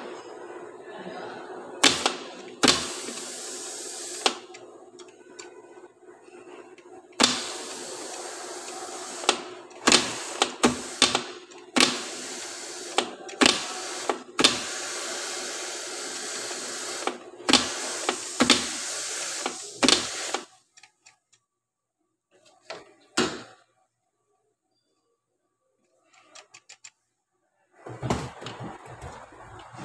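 Metal parts clinking and knocking as gears and a shaft are seated by hand in an aluminium CVT transmission case: a run of sharp knocks over a steady hiss that cuts off about two-thirds of the way through. After a quiet stretch with a single knock, a cluster of knocks follows near the end as the case is handled.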